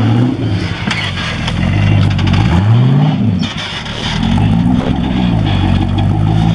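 A rock-crawler buggy's engine revving up and falling back several times in short bursts of throttle as the truck climbs over boulders, settling to a steadier run near the end.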